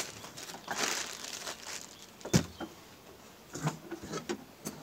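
Plastic bag crinkling and rustling as flour is handled over a stainless steel mixing bowl. There is one sharp knock a little over two seconds in and a few lighter clicks later.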